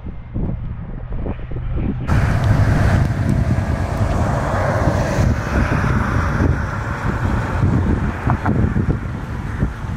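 Low wind rumble on the microphone, then, after a cut about two seconds in, a classic 1950s four-door sedan driving slowly past with its engine running at low speed.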